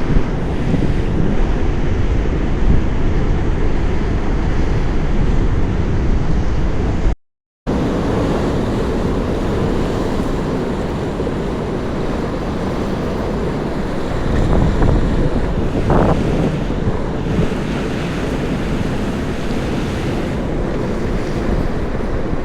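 Wind buffeting the microphone over the steady wash of sea waves, breaking off for a moment about a third of the way in.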